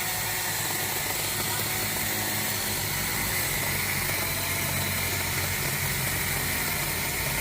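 A motor running steadily, a constant low hum with a hiss over it and no change in level.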